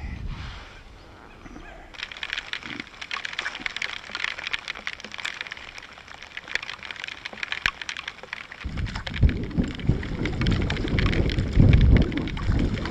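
Rain falling on open water and on a rain jacket's hood: a steady hiss full of tiny drop ticks. About two-thirds of the way through, a loud low rumble comes in and keeps going.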